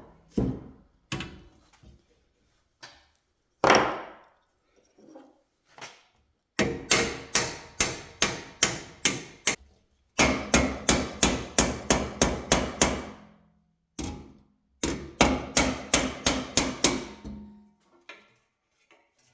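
Hammer blows on bent thin sheet metal of a band saw, knocking the dents out: a few single blows, then three quick runs of taps at about three to four a second.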